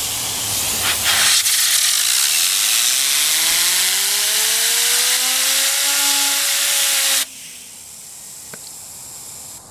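Compressed air hissing hard from an air compressor blow gun aimed at a fidget spinner. From about two seconds in, a whine from the spinning spinner rises in pitch and then levels off as it spins up. The air cuts off suddenly about seven seconds in.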